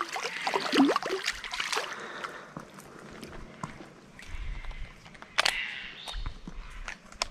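Water splashing and sloshing as a hooked Murray cod thrashes at the surface while it is played in to the bank, with a sharp knock about five and a half seconds in.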